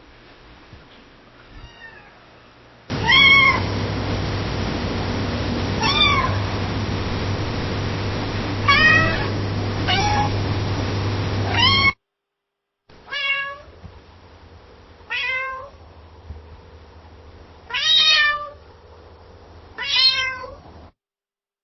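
Domestic cat meowing repeatedly across several separate recordings, each meow rising then falling in pitch. A couple of faint meows come first, then about five meows over a loud steady background noise, which cuts off for a moment before four more meows over a quieter background.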